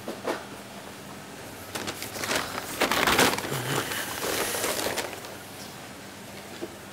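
A large paper flour sack crinkling and rustling as it is handled and opened, loudest about three seconds in.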